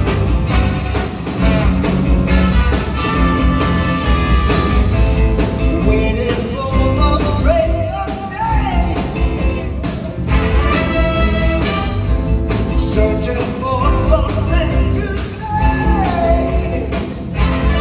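Live band with a horn section of saxophones, trumpet and trombone over keyboards, guitar and drums, playing a rock song with vocals.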